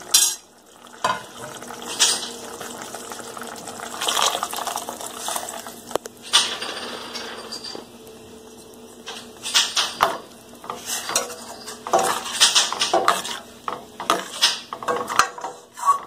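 Metal spoon clinking and scraping against stainless steel cookware in irregular clatters, most of them near the end, as ground coconut and poppy seed paste is added to a simmering vegetable kurma and stirred in.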